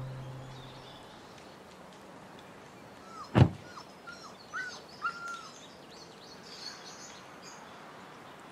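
Birds chirping over a faint steady background, with a run of five or six short calls a few seconds in. One heavy thump, the loudest sound, comes just before the calls.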